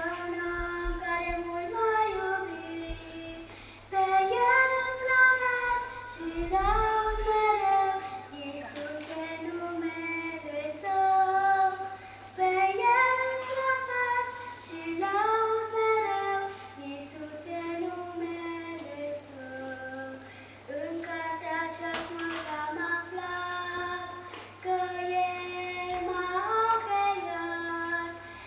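A young girl singing a Romanian hymn solo, in sung phrases of a few seconds with short breaths between them.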